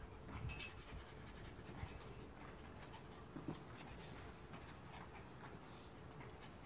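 A dog panting softly, with a few faint scuffs and taps.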